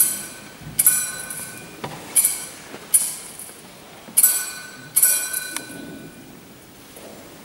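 Metal thurible swung on its chains, clanking sharply in three pairs of strikes, each followed by a short metallic ringing. These are the double swings of incensing the Gospel book.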